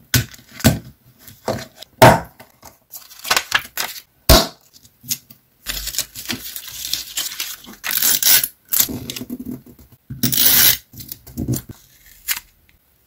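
Close-up paper crafting sounds: paper rustling and crinkling in a string of sharp clicks and rustles as scrap papers and a clear plastic journal sleeve are handled. Scissors cut card near the end.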